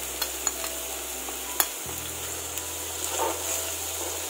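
Spice paste frying in hot oil in a nonstick kadai, a steady sizzle, as a wooden spatula taps against the pan a few times in the first two seconds and then scrapes and stirs the paste from about three seconds in.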